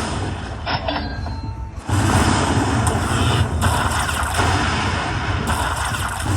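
Lightning Cash Moon Race video slot machine playing its free-spin bonus audio: dense, noisy game sound effects over music, jumping louder about two seconds in with a heavy low rumble.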